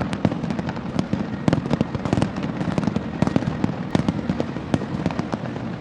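Fireworks display: a dense, irregular volley of bangs and crackling reports, several a second, with no let-up.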